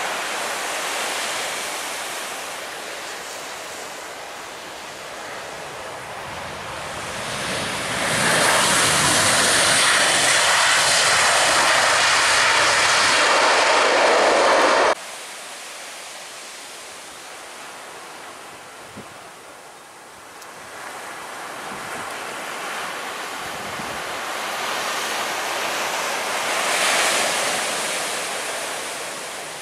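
Jet engines of a landing Virgin Australia Boeing 737, fading after touchdown, then much louder and rushing as it rolls out on the runway under reverse thrust until the sound cuts off abruptly about halfway. Afterwards a second twin-engine widebody jet on final approach grows steadily louder, peaking near the end.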